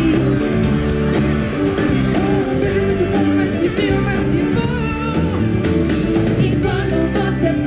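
Live pop music from a band, with a lead vocal sung over a steady bass and full accompaniment.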